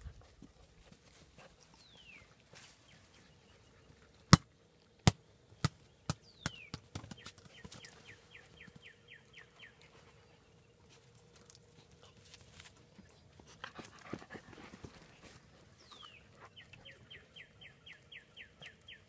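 An object drops and bounces to rest on a hard surface: a sharp knock, then a run of knocks that come quicker and fainter. A songbird sings twice, each song a falling whistle followed by a rapid run of short repeated notes.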